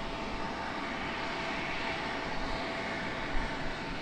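Embraer E175 regional jet taxiing, its turbofan engines at low taxi power giving a steady whine over an even rush.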